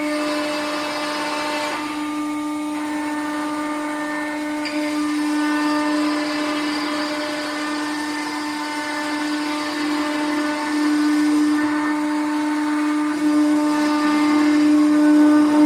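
CNC router spindle running at high speed with a steady whine, getting somewhat louder in the last few seconds.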